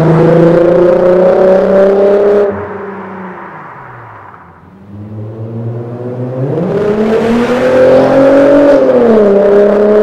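Mercedes W220 S320's V6 through an MEC Design 'Earthquake' aftermarket exhaust, accelerating hard in a drive-by, its note climbing in pitch and then dropping away about two and a half seconds in. A second, harder run builds from about five seconds in, rising in pitch to its loudest and falling back near the end.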